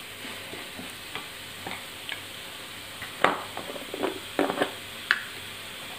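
Wooden spatula stirring and scraping a soft tomato-and-onion masala in a white-lined frying pan, with a low sizzle of frying underneath. The scrapes come irregularly, a few louder ones about three to five seconds in.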